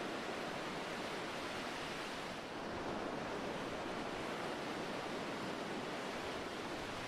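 Ocean surf breaking and washing up a sandy beach: a steady rush of waves with no distinct strokes.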